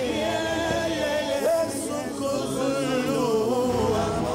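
Music with sung voices: long held, wavering notes.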